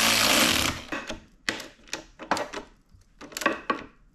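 A cordless drill-driver runs briefly, driving in a motorcycle foot peg bracket bolt, and stops under a second in. It is followed by a string of light clicks and knocks as tools and metal parts are handled.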